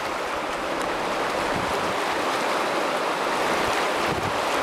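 River rapids rushing steadily, whitewater churning through standing waves, with wind noise on the microphone.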